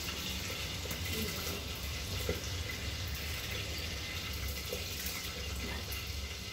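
Water at a rolling boil in a large pot, a steady bubbling hiss, as soaked basmati rice goes in by the handful.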